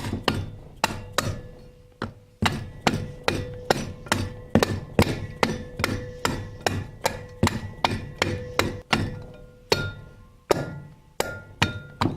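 Quick, steady hammer taps on a metal transmission input drum, about two to three a second with a couple of short pauses, the drum ringing after each strike as a part is tapped into place.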